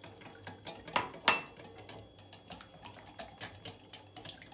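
Whisk with red coated wires stirring a thin tomato-paste sauce in a glass bowl: a quick, uneven run of small clicks and taps against the glass, with two sharper knocks about a second in.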